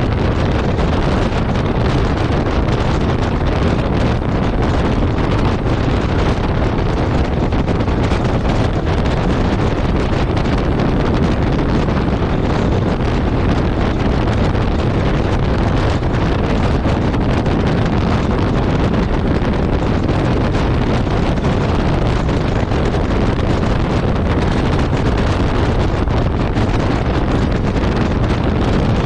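Steady wind rushing over the microphone at road speed, with the Yamaha Ténéré 700's parallel-twin engine running underneath at a constant cruise.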